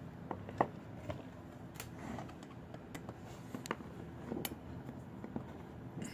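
Scattered small metallic clicks and clinks of hand tools and clamp hardware being handled, over a low steady hum, with the sharpest click about half a second in.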